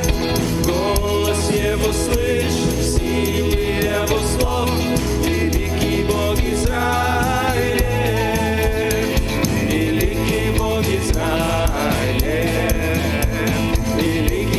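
Live worship band playing a song, with drums, bass, electric guitars and keyboards under a woman and a man singing in Russian.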